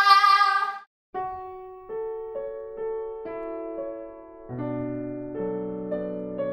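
Slow piano music: single sustained notes struck one after another, then fuller chords with low bass notes coming in about halfway through.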